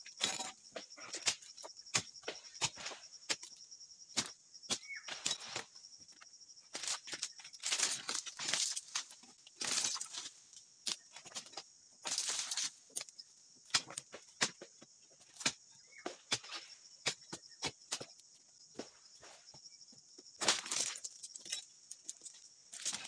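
Irregular, repeated strikes of a dodos, a long-poled chisel blade, chopping into the bases of oil palm fronds, with longer rustling scrapes now and then as fronds are cut. A steady high insect drone runs underneath.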